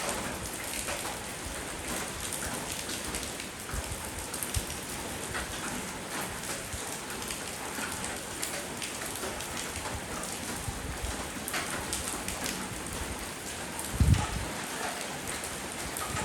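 Steady rainfall, with many separate drops striking hard surfaces. There is a single low thump near the end.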